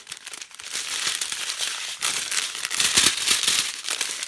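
Small clear plastic bags of diamond-painting drills crinkling as they are handled and shuffled, building about half a second in and loudest around three seconds in.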